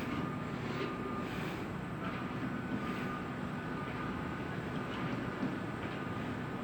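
Steady low rumble and hiss of vehicle noise, with no knocks or other sudden sounds.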